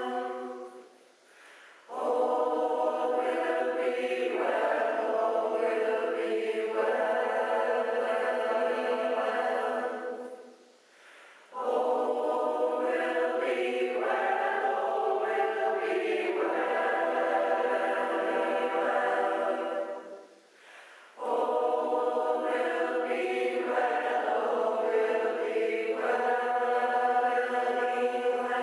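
A choir singing held chords in three long phrases of about nine seconds each, with a short pause of about a second before each phrase.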